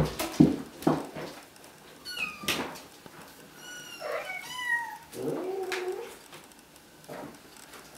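Bengal kittens mewing: a few knocks in the first second, then short, high-pitched mews that fall in pitch, a quick run of them about four seconds in, and one lower, longer mew near six seconds.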